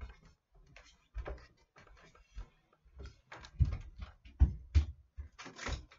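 A run of irregular knocks and bumps with a few fainter clicks, like objects being handled and set down close to the microphone. The loudest thumps come about three and a half to six seconds in.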